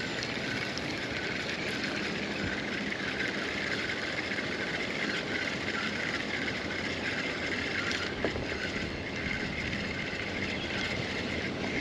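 Steady river ambience heard from a kayak: an even wash of noise with a steady high buzz running through it.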